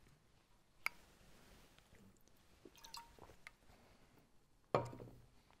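A person drinking from a plastic bottle: a sharp click about a second in, faint sips and swallowing sounds, and a louder short noise near the end.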